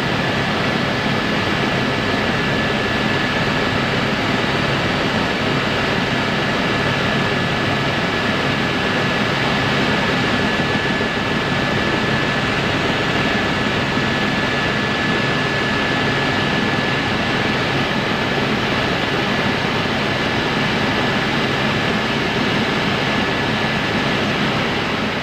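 Helicopter's engine and rotors heard from inside the cabin in flight: a loud, steady drone with a constant high whine.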